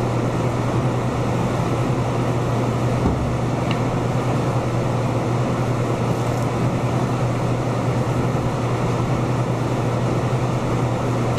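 Steady drone of a ventilation fan running, a strong low hum under an even rushing noise.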